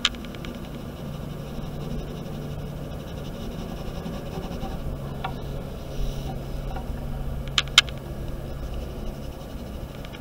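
Steady low hum and hiss of background noise, with a sharp click at the start, a smaller one about halfway, and two close clicks about three-quarters of the way through.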